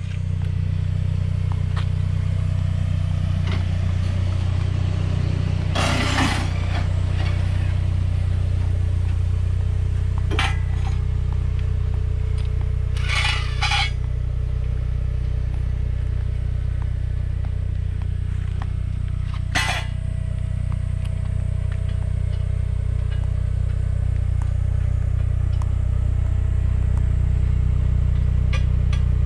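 An engine idling steadily, with sharp metallic clinks and scrapes from a tow bar being fitted, the loudest about six seconds in, then around ten, thirteen and twenty seconds in.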